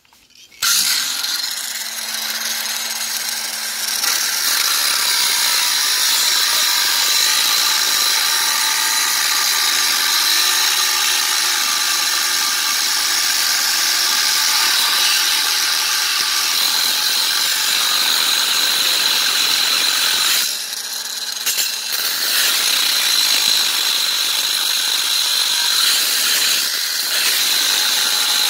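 Sturm AG9020CL cordless angle grinder, powered from a 12 V battery, starting up about a second in and then cutting steel with an abrasive cut-off disc: a steady high whine with grinding noise. The sound dips briefly about two-thirds of the way through, then picks up again.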